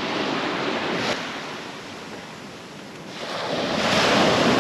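Surf washing on the beach, with wind on the microphone. The rush eases, then swells up loudly again about three seconds in, and there is a brief knock about a second in.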